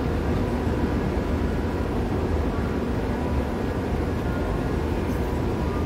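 Steady low mechanical rumble and hum of a running metro-station escalator, mixed with the station's ambient drone.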